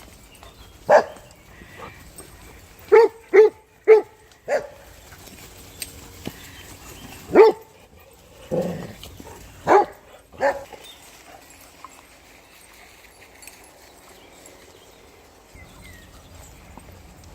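Dog barking in short, sharp single barks, about nine of them over ten seconds, with a quick run of three about three seconds in.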